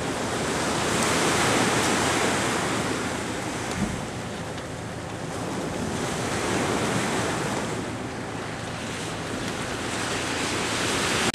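Wind rushing over the microphone together with the wash of choppy sea, an even noisy roar that swells and eases in slow surges.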